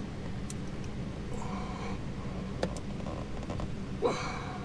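A few small plastic clicks and a louder knock near the end as hands work the gas-pedal wiring connector under the dash, over a steady low hum.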